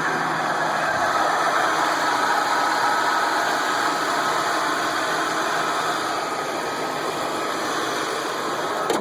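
Ford Crown Victoria P71's 4.6 L V8 running steadily just after a start with the A/C switched on, with a squeal still audible under the engine noise but less pronounced. The uploader links the squeal to the A/C clutch.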